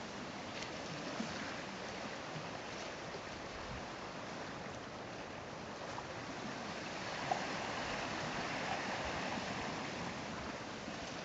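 Steady wash of sea water on a rocky shore, an even hiss with no clear rhythm, broken by one brief click about seven seconds in.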